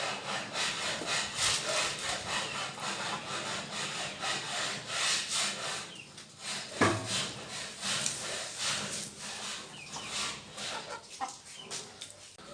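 Domestic hens clucking amid rustling and scratching noises, with one sharp knock about seven seconds in.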